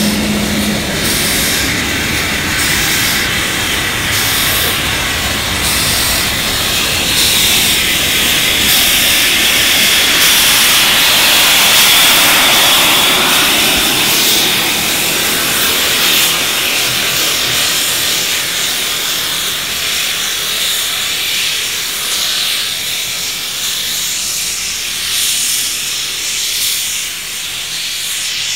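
NSWGR 59 class 2-8-2 steam locomotive moving slowly with its cylinder drain cocks open, blowing out steam with a loud hiss. A pulsing beat runs through the hiss over the first several seconds, and the hiss is loudest about ten seconds in.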